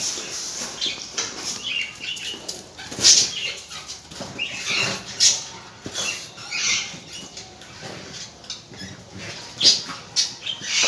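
A pug nosing and mouthing a plastic football across a tiled floor and a shaggy mat: irregular scuffs, rustles and knocks of the ball.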